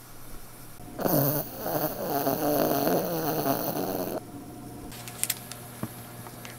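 Sleeping Maltese dog making one long, wavering snore-like noise of about three seconds, starting about a second in. A few light clicks follow near the end.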